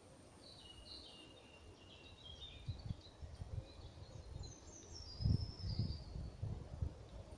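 Small woodland birds singing in short, high twittering phrases, with irregular low buffeting rumbles on the microphone from about two seconds in, the loudest a little past five seconds.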